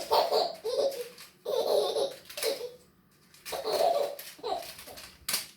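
Baby laughing in three bursts of about a second each, with a short sharp click near the end.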